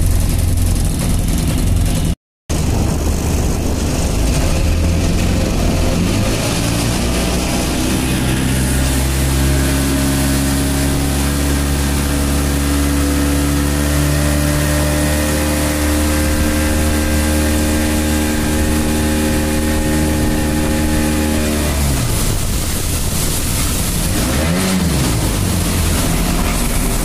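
River launch's engine running under way. Its pitch rises over a few seconds as the boat gathers speed, then holds steady, with water rushing along the hull. Near the end the steady note breaks off and changes, with a short rise and fall in pitch.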